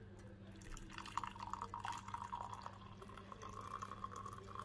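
Hot milky masala chai poured through a tea strainer into a mug: a faint, steady trickle and splash that comes in about a second in.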